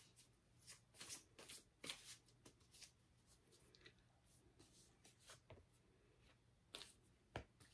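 Deck of cards being shuffled and handled in the hands: faint, scattered papery flicks and rustles, with a sharper tap near the end.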